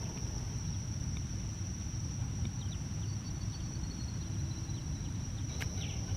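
Insects trilling in one steady, unbroken high tone over a low rumble, with a few faint short chirps and a single click near the end.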